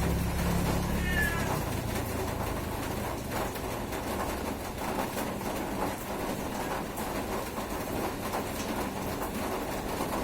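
Steady rain falling, with a low engine rumble that cuts off about a second in and a brief high call at about the same moment.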